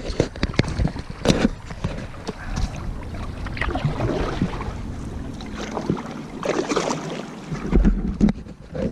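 Double-bladed paddle strokes from an inflatable kayak, the blades dipping and pulling through calm water with splashes and drips every second or two.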